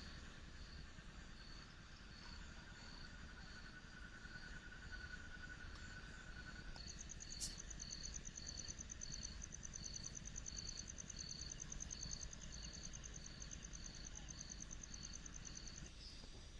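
Faint chorus of calling frogs and insects: a short high chirp repeats about every half second, and about 7 seconds in a fast, even, high-pitched trill joins it.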